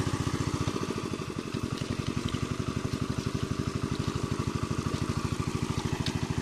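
Engine of the water pump draining the pond, running steadily with an even, rapid beat of about a dozen thuds a second.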